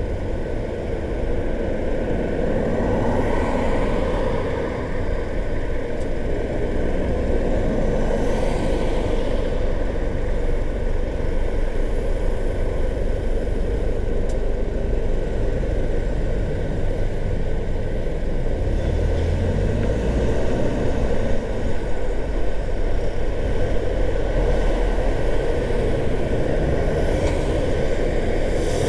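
Car driving on city streets: a steady low rumble of engine and tyre noise, with a few brief swells of noise at about three and eight seconds in and again near the end.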